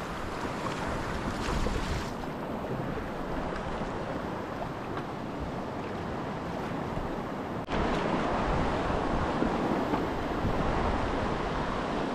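Whitewater of tidal rapids rushing and breaking, with wind on the microphone; the water gets suddenly louder about two-thirds of the way through.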